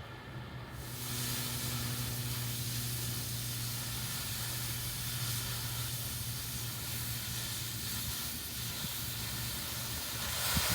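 Cutting torch hissing steadily as it cuts through a metal plate, starting about a second in.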